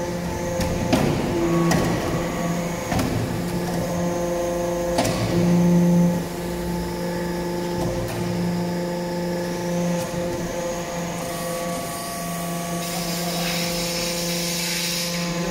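Hydraulic metal-chip briquetting press running: a steady hum from its electric motor and hydraulic pump that grows louder and softer by turns as the press works through its cycle, with a few short knocks.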